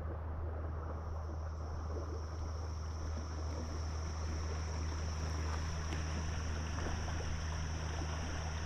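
River water running over shallow rocky riffles, a steady rush. A steady low hum sits beneath it throughout, and a faint, steady high-pitched tone comes in about a second in.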